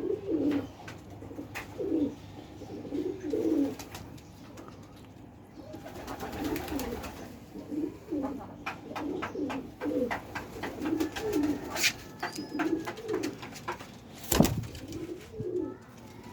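Pigeons cooing over and over in low, rolling calls, with scattered sharp clicks, a brief rustle about six seconds in and one loud knock about fourteen seconds in.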